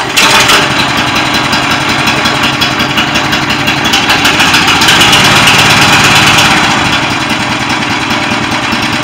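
Small gasoline engine of a pressure washer starting abruptly and running steadily at high speed. After sitting all winter it runs fine.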